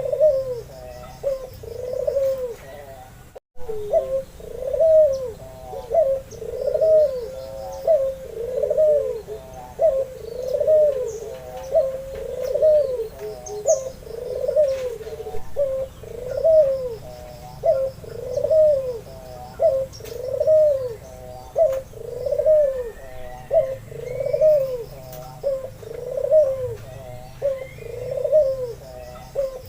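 Albino white ringneck dove (puter) cooing over and over in a steady rhythm, about one coo a second. Faint high chirps of small birds sound in the background, and the sound drops out briefly about three and a half seconds in.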